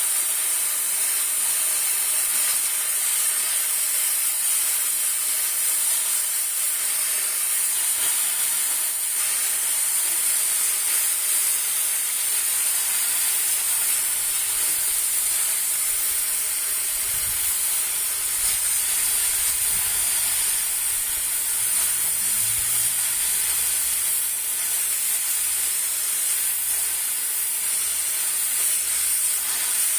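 Steady, loud hiss, with a faint low rumble in the second half.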